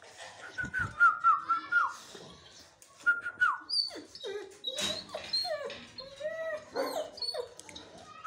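A dog whining in short, high cries that drop in pitch at the end: a quick run of them in the first couple of seconds, then more, varied whines.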